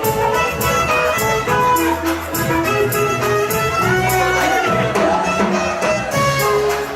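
Background music with a violin melody over strings and a steady beat.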